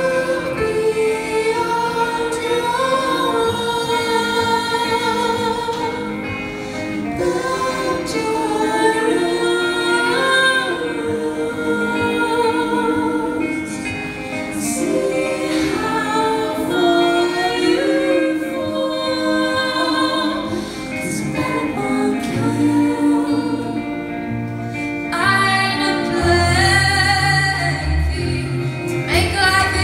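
Live alternative rock band with a female lead singer, the audience singing along in a many-voiced sing-along. The accompaniment is sparse at first; low bass notes come in a little over two-thirds of the way through, and the full band swells in near the end.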